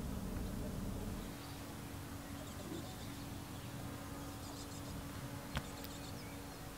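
Quiet outdoor background with faint, scattered bird chirps and a low steady hum, and a single sharp click a little over five seconds in.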